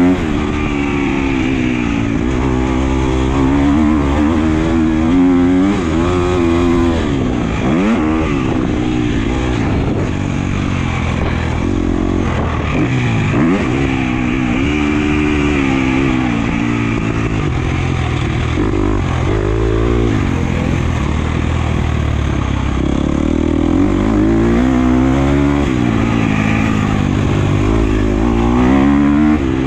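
Husqvarna FC250's 250 cc four-stroke single-cylinder engine, heard from on the bike as it is ridden on a motocross track. The engine revs rise and fall again and again every few seconds as the throttle is opened and shut and the gears change.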